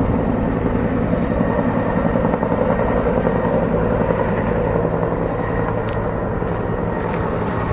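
Firefighting helicopter slinging a water bucket, in flight with its rotor and turbine running steadily.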